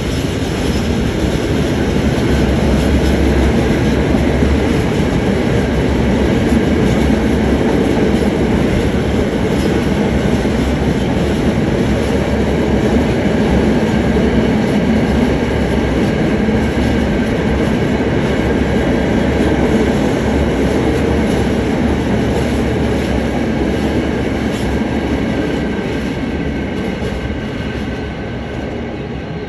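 Freight train of empty flat wagons, hauled by a GBRf Class 66 diesel, passing close by: a loud, steady rumble and clatter of wagon wheels on the track, easing a little near the end as the rake draws away.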